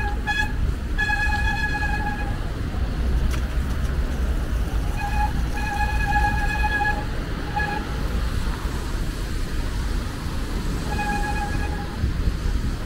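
A vehicle horn honking repeatedly, short toots and longer held blasts, over a steady low street rumble.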